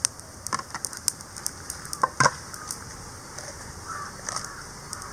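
Whole spices and dry red chillies crackling and ticking as they dry-roast in an aluminium pan over a low gas flame, scattered small clicks with two sharper ones about two seconds in.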